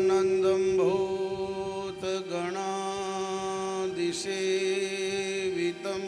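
Devotional chant sung over a steady held drone. The melody glides up and down in places.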